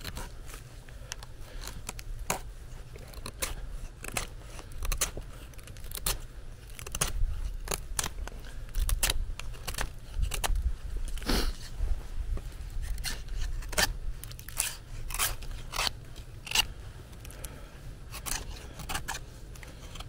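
Folding knife with a 20CV steel blade scraping and shaving wet, partly frozen dead wood in repeated short strokes at irregular intervals. It is the sound of whittling away the soaked outer layer to get to dry wood inside.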